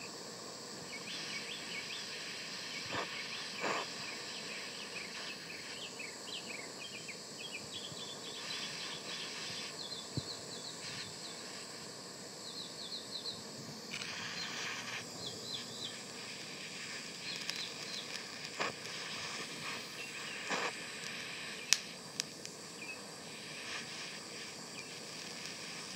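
Steady hiss of a handheld butane torch flame playing on a fidget spinner's metal ball bearing, with a few sharp ticks scattered through. Short high chirping calls run through the first half.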